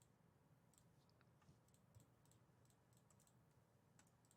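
Near silence: faint room tone with scattered faint short clicks.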